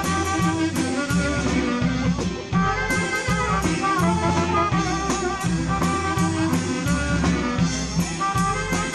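Waila (chicken scratch) band playing a dance tune: a saxophone carries the melody over bass guitar and a drum kit keeping a steady beat.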